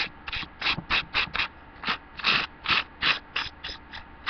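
Butter knife scraping butter across toast in quick, short strokes, about three or four a second.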